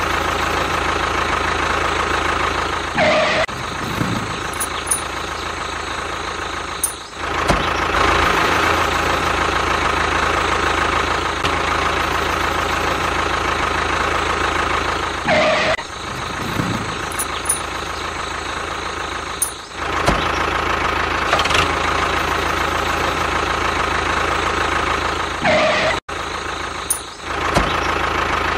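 Homemade mini tractor's motor running steadily with a buzzing engine-like drone, broken by a few brief dips. Three short rising sounds come through at well-spaced intervals.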